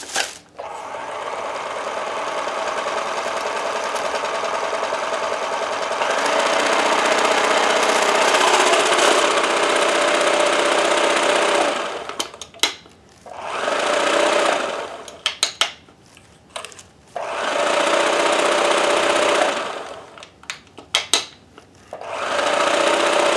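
Kenmore 158.1030 sewing machine running under its own motor, steadily at first and then faster from about six seconds in. It stops near the middle and then runs in two more shorter spells, with clicks in between. It is a test run after freeing and oiling a seized machine, and it turns over freely: definitely loosened up.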